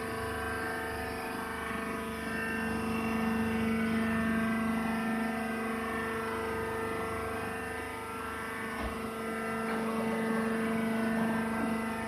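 Wood chips baling machine running: a steady mechanical hum, swelling and easing slightly in loudness.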